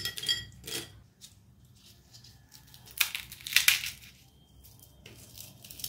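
Crisp deep-fried nimki (namak para) pieces dropped by hand into a glass bowl, clattering, then a large flaky triangular nimki broken apart in the hands with sharp crunching cracks, mainly about three and three and a half seconds in. The crackle is the sign of well-fried, flaky (khasta) nimki.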